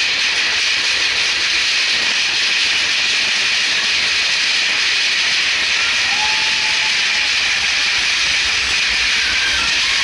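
Steady loud hissing rush aboard the Big Thunder Mountain mine-train roller coaster in a dark tunnel, with a faint short squeal about six seconds in.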